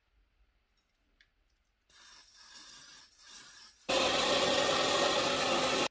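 Hand-held hair dryer blowing steadily, starting abruptly about four seconds in and cutting off at the end. Before it comes a softer rushing, scraping noise.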